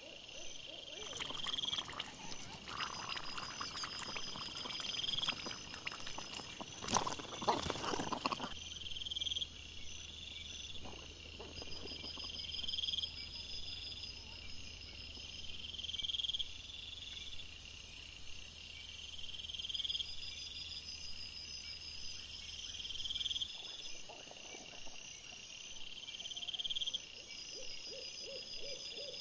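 Trail-camera night ambience: a high chirp repeating about once every second and a bit, like insects calling. For the first eight seconds or so there is rustling and scraping from wild boar rooting and foraging close to the camera, which then stops.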